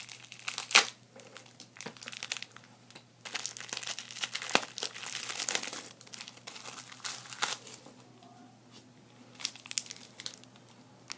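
Foil wrappers of Magic: The Gathering booster packs crinkling as the packs are handled, in irregular bursts with a few sharp clicks, busiest from about three to six seconds in.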